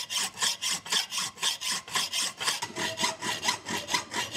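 Hacksaw cutting through angle iron clamped in a vise, in quick, even back-and-forth strokes, about four a second.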